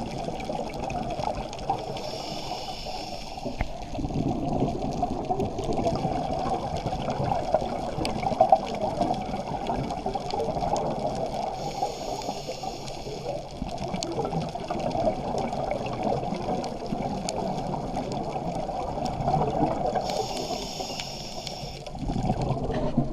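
Muffled underwater ambience as heard through a submerged camera housing: a steady dull rush of water, with a scuba regulator's exhaled bubbles gurgling out in short bursts about every ten seconds, three times.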